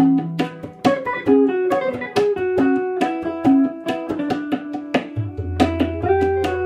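Instrumental background music of quick plucked guitar notes; a low bass note comes in about five seconds in.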